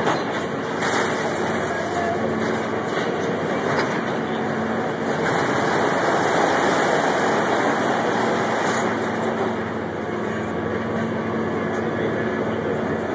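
Hydraulic demolition excavator working: a steady engine drone with scattered crunches of building material being torn down.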